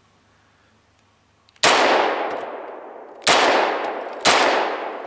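Semi-automatic pistol firing three shots, the first about a second and a half in, then about a second apart, each sharp crack trailing off in a long echo. A fourth shot comes right at the end.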